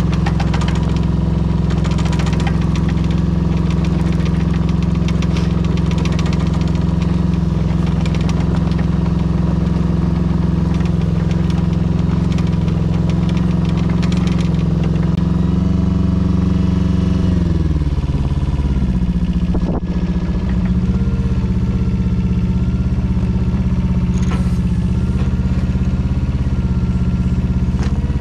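Small Yanmar diesel engine of a Daewoo Solar 010 mini excavator running steadily while the machine is driven. Its pitch sags about two-thirds of the way through and then holds steady again, with a single sharp click just after the dip.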